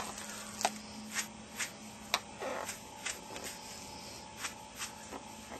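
Faint, irregular clicks and rustles, about a dozen over a few seconds, with no steady rhythm.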